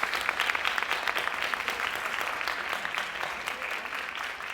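Audience applauding, the clapping gradually thinning and fading away.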